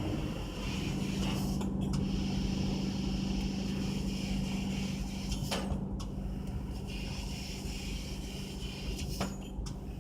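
750 W fiber laser cutting machine running as it cuts 2 mm stainless steel sheet: a steady hum with a hiss over it, broken by three brief clicks.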